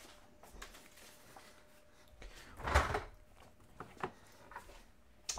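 Fridge door pulled open with one dull thump about halfway through, followed by a few light knocks.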